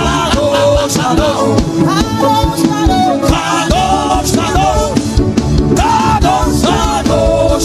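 Loud worship music: a singing voice with a band of drums and bass playing a steady beat.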